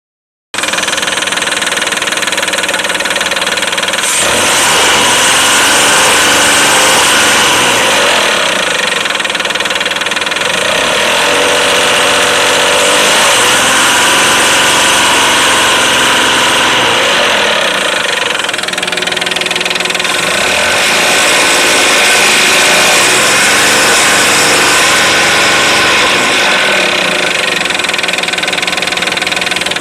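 A vehicle engine running with a knock, revved up and down several times. The knocking is the sign of an engine fault.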